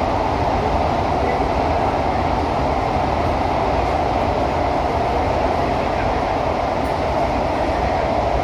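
Steady rolling rumble inside a CT251 metro train running through a tunnel, with a constant hum over the low rail and wheel noise.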